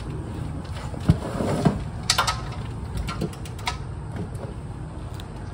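Clicks and knocks of a socket wrench and hand tools at the oil drain bolt under the truck: one sharp knock about a second in, then a run of scattered clicks, over a steady low hum.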